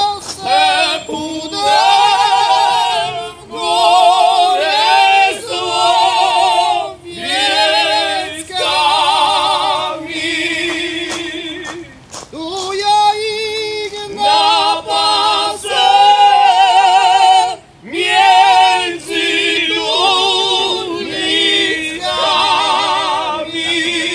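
Several voices singing a Polish highlander (góral) folk song unaccompanied, in high, wavering phrases with short breaks between them.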